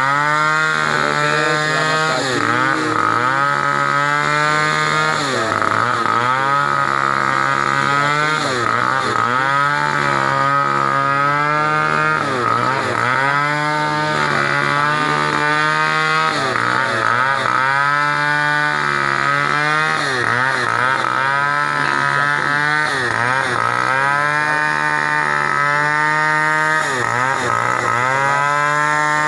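A small engine running steadily at a constant speed, with a shifting, wavering tone in its higher overtones.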